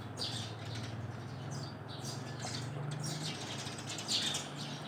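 Birds chirping in short, repeated calls over a low steady hum.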